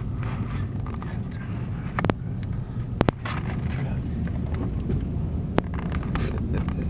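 Steady low rumble of a car driving slowly, heard from inside the cabin, with a few sharp clicks about two and three seconds in.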